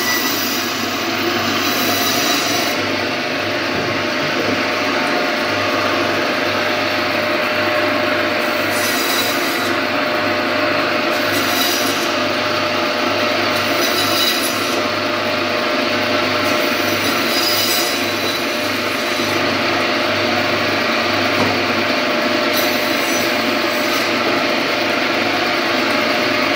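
Meat band saw running steadily, its blade cutting through a frozen fish into steaks, with a sharper hissing rasp each time a slice is cut, several times at irregular intervals.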